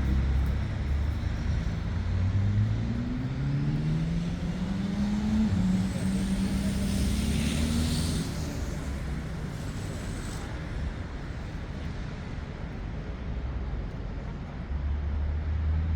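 Road traffic: a motor vehicle's engine rises steadily in pitch for several seconds as it accelerates over a constant low traffic rumble, with a brief hiss and a thin high squeal partway through.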